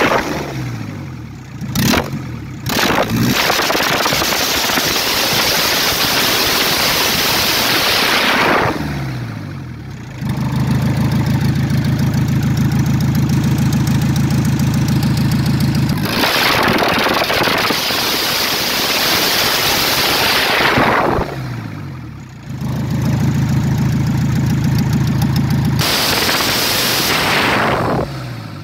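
Volkswagen TDI PD (Pumpe-Düse) diesel engine free-revving: three times it is held at high revs for a few seconds, then the revs fall back to a steady idle.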